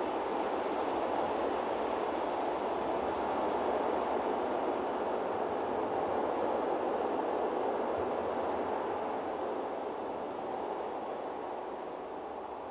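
A steady rushing noise with no clear pitch, easing down slightly near the end.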